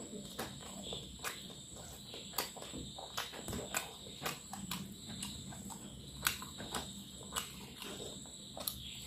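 Close-up eating sounds of a man eating rice and fried fish by hand: chewing and lip-smacking, with fingers mixing rice and fish on the plate, heard as a string of irregular wet clicks and smacks.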